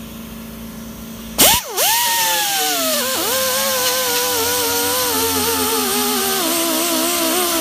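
Ingersoll Rand air die grinder with a small 3M abrasive disc, cutting in with a sharp loud burst about a second and a half in after a quieter steady hum. It then whines loudly while stripping paint and rust off sheet steel, its pitch wavering and dipping sharply twice as the disc is worked against the metal.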